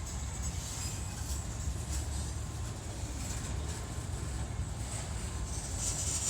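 CSX freight train of empty grain cars rolling past with a steady rumble of wheels on rail and a hiss above it.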